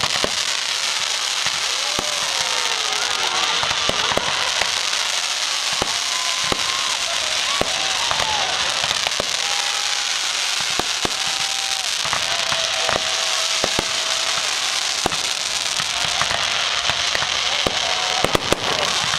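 Fireworks display: steady, dense crackling with sharp bangs scattered through it. Short whistling tones sound over it, one sliding down in pitch a few seconds in.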